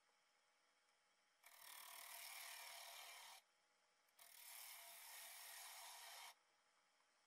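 Wood being worked on a lathe, something rubbing against the spinning wood in two hissing passes of about two seconds each, with a short gap between them.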